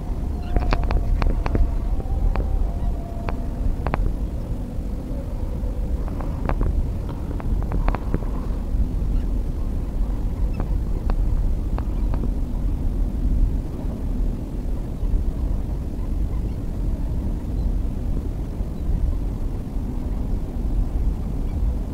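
Wind buffeting the microphone in a constant low rumble, with scattered sharp clicks and taps in the first half as the fishing rod and line are handled.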